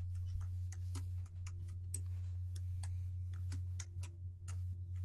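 Computer keyboard keys clicking irregularly, about three a second, over a steady low electrical hum on the call audio.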